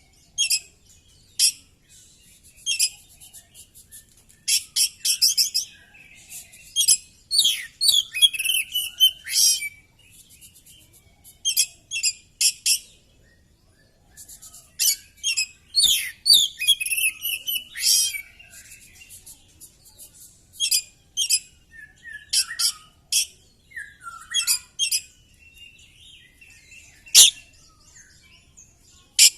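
Oriental magpie-robin (kacer) singing in fast, varied phrases of high whistles, chips and trills, broken by short pauses. A single sharp click comes near the end.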